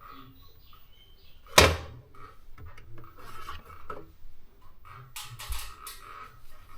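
Handling noise: objects being rubbed and scraped against a hard surface with scattered light clicks, one loud sharp knock about a second and a half in, and a burst of scraping near the end.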